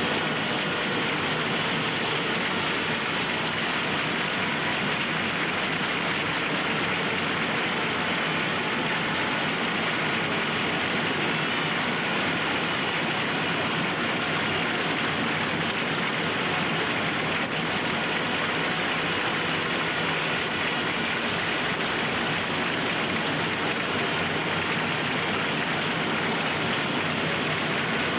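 A steady, even hiss with no change in level and no distinct events.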